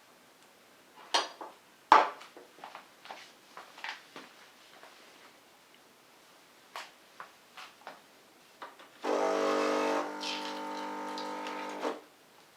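A series of clicks and knocks from handling the Krups XP 3440 espresso machine, the loudest about two seconds in, then its pump humming steadily for about three seconds before cutting off.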